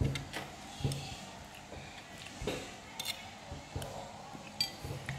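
A metal spoon clinking and tapping on a ceramic plate of rice in a few scattered light clicks.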